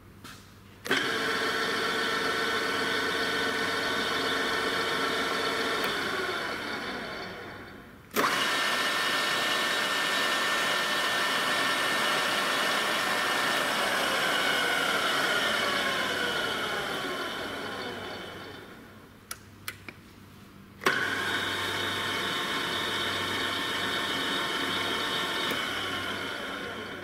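Breda R1880MP radial drill's spindle drive switched on three times. Each time it starts suddenly, runs steadily with a whine, then winds down as its pitch falls. A few sharp clicks of the control lever come just before the third start.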